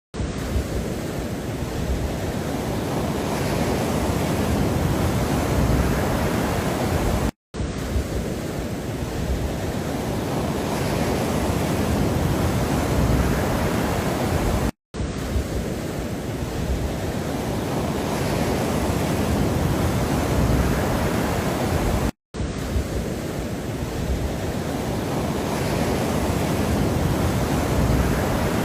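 Steady rushing noise, a relaxation background track, played as a short loop that drops out for a split second about every seven and a half seconds, three times here.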